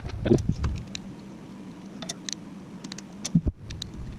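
Light clicks and knocks of small plastic and metal parts being handled during assembly, busiest in the first half-second, with a sharper knock about three and a half seconds in, over a faint steady hum.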